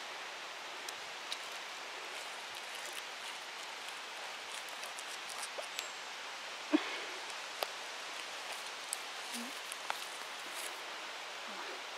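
Light rustling and small clicks of grass and forest-floor litter being handled close by, over a steady soft hiss, with one sharper short knock about seven seconds in.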